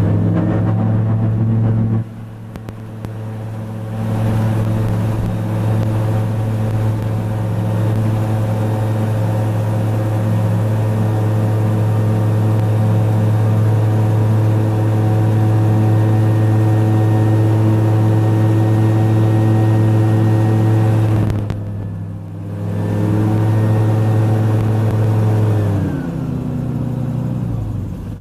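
Autogyro's engine and propeller droning steadily in flight. The sound drops away briefly twice, about 2 seconds in and again a little past 20 seconds in, then comes back, and it falls in pitch near the end as the engine is throttled back.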